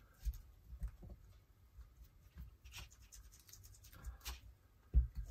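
Faint scratchy dabbing and rubbing of a foam ink-blending tool against a paper-covered glass whisky bottle, an uneven string of soft taps, with a louder bump near the end.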